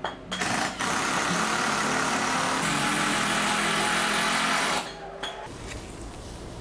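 Cordless drill running steadily as it drives a screw into pallet wood, its motor pitch shifting slightly under load. It stops about five seconds in.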